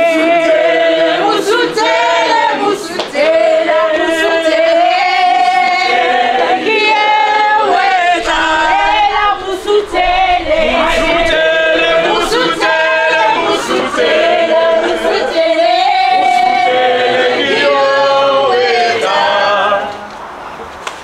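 A group of men and women singing together in chorus. The singing stops sharply near the end.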